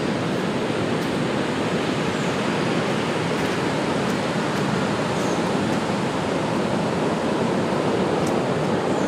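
Ocean surf washing on a beach: a steady, even rush of breaking waves with no distinct rhythm.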